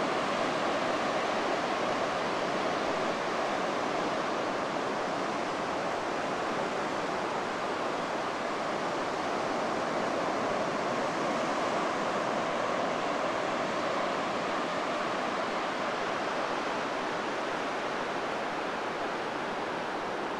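Ocean surf breaking and washing onto a sandy beach, a steady unbroken wash of waves.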